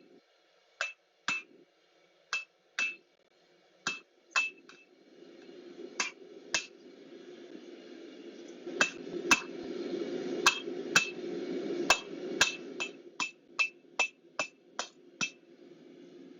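Hammer blows on hot steel stock at an anvil, drawing out the stem of a forged leaf key ring. Each strike rings briefly. The blows come in spaced pairs at first, then quicken to about two a second, over a steady rushing noise that builds underneath.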